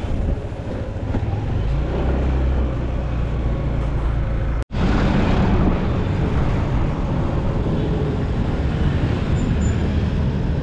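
Motorcycle riding along with traffic around it: a steady mix of engine, road noise and other vehicles. The sound cuts out completely for an instant a little under halfway through.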